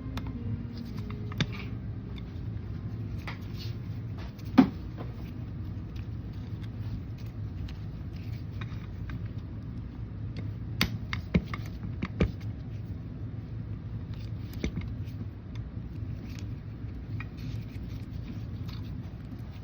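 Scattered metallic clicks, clinks and knocks of tools and winch parts being handled as a winch is taken apart, over a steady low hum. The loudest knock comes about four and a half seconds in, with a few more close together around eleven to twelve seconds.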